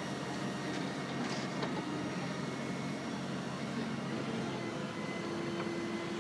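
Excavator's diesel engine running steadily while the bucket is held just above the ball. A steady hum joins in about two-thirds of the way through.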